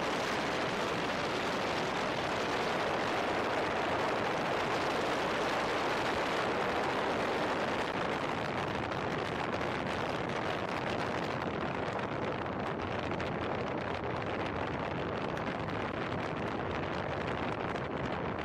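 Steady rushing wind on the microphone of a camera mounted outside a moving car, mixed with road noise. It turns slightly duller a little past halfway.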